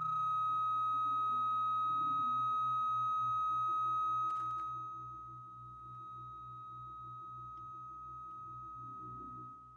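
A steady high whistling tone rings over held organ-like chords that pulse evenly a couple of times a second. The tone is loudest for the first four seconds, then softens, and there is a single click about four seconds in.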